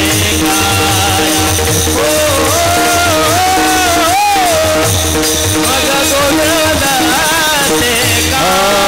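Warkari kirtan chal: a man sings a gliding devotional melody while a row of taal, small brass hand cymbals, clash in a steady rhythm. A held drone and low drumbeats sound underneath.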